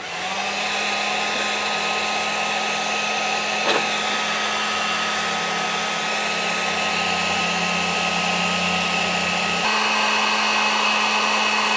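Warrior heat gun running: a steady blowing noise with a steady motor hum, heating the end of a stiff 1/4-inch rubber fuel line to soften it for pushing onto a tank outlet nipple. A single light knock about four seconds in, and the sound shifts a little near the end.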